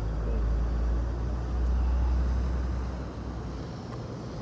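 Low outdoor rumble that swells to its loudest about two seconds in and dies down after about three seconds.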